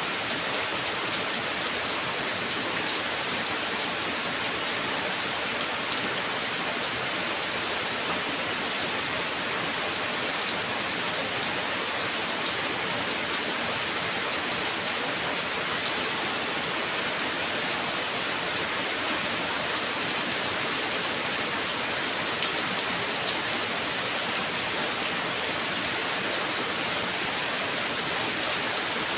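Heavy rain falling steadily, an even hiss of drops with no let-up.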